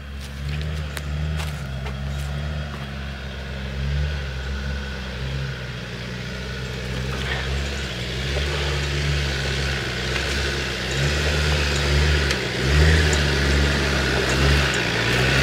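Land Rover Discovery 4WD's engine labouring at low revs as it crawls up a rocky track, the revs rising and falling with the throttle. It grows steadily louder as the vehicle approaches.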